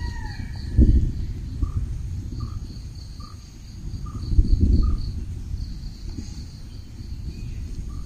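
Village birds calling: one bird repeats a single short note about every three-quarters of a second, over a fast, high, pulsing chirp. Two gusts of low rumble come about a second in and again about halfway through.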